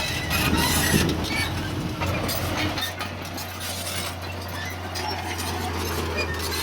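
Bulldozer at work: steel crawler tracks clanking and squeaking over a running diesel engine, which settles into a steady low drone about three seconds in.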